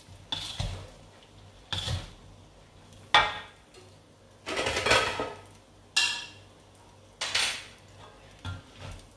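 Wooden spatula scraping and tossing fried rice-vermicelli noodles around a metal wok, in separate strokes about once a second.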